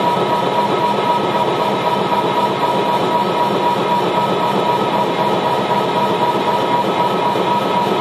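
Minimalist electronic music built from phase-shifted short loops: a loud, dense, steady throbbing noise with a held high tone running through it.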